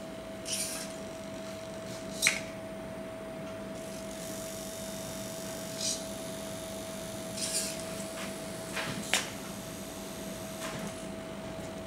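Small hobby servo motors of a three-servo robot arm whirring in short bursts as the arm swings down, closes its gripper on a block and moves it, with a couple of sharp clicks. A steady hum runs underneath.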